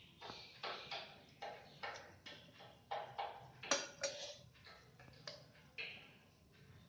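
A steel ladle scraping inside a stainless-steel pressure cooker in quick repeated strokes, about two or three a second, with two sharper metallic clinks about halfway through.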